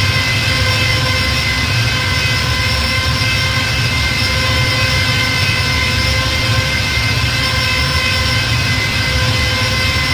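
TIE fighter engine sound effect: a steady, unchanging drone of several high whining tones over a low rumble.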